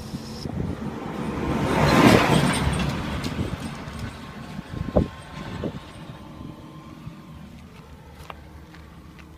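A car driving past, its tyre and engine noise swelling to its loudest about two seconds in and fading away, followed by two short knocks about five seconds in.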